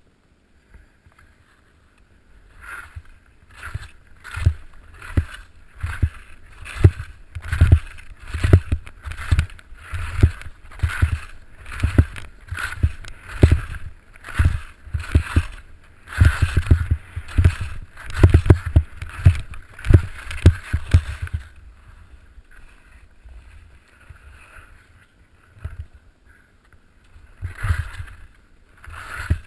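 Blizzard SL FIS slalom skis scraping and hissing across snow in quick, rhythmic short turns, about one turn every three-quarters of a second, with wind rumbling on the microphone. The turns stop for a few seconds past the middle and start again near the end.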